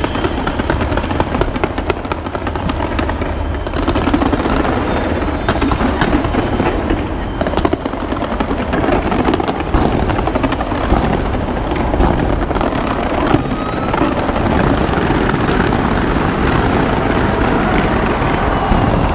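Large fireworks display going off without a break: a continuous rumble of bursts thick with rapid crackling, which grows louder about four seconds in.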